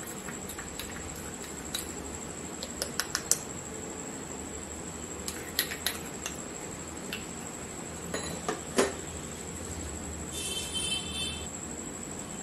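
Plastic measuring spoon tapping and scraping against a small glass bowl and a steel pot as cornflour is scooped and added: scattered light clicks in small clusters, the sharpest about nine seconds in. A brief high ringing tone follows near the end.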